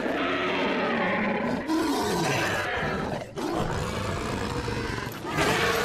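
Uruk-hai roaring from the film's soundtrack: several long roars in a row, their pitch gliding up and down, then a steadier held cry near the end.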